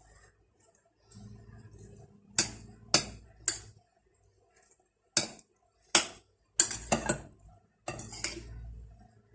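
A spoon clinking against a bowl in about eight sharp knocks with short rings, irregularly spaced over several seconds, as seasoning is mixed into the food.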